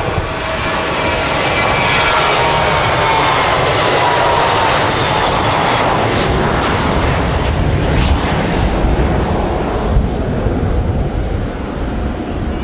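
Twin jet engines of an Airbus A320-family airliner at takeoff power during rotation and initial climb: a loud, steady roar with a whine that falls in pitch as the aircraft passes. The sound eases slightly near the end as it climbs away.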